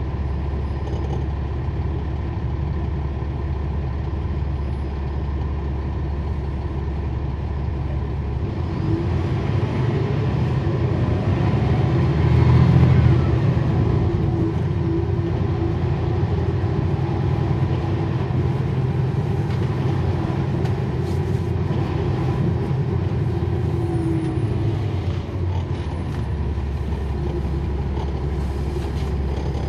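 A NABI 40-SFW transit bus's Cummins ISL9 straight-six diesel, heard from on board. It idles, then revs up as the bus pulls away about nine seconds in, is loudest around thirteen seconds, runs steadily, and drops back to idle near the end.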